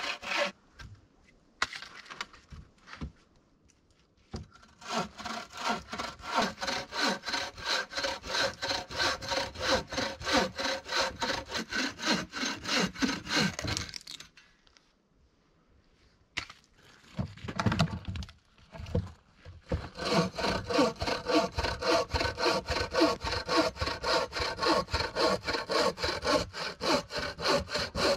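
Bow saw cutting a log, its blade rasping through the wood in quick, even back-and-forth strokes. The sawing stops twice: for a few seconds near the start and briefly around the middle.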